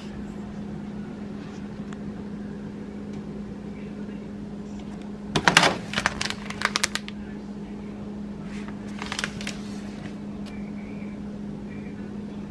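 Dishes knocking and clinking as they are handled on a wooden table: a loud cluster of knocks about five to seven seconds in, then a few lighter ones around nine seconds. A steady low appliance hum runs underneath.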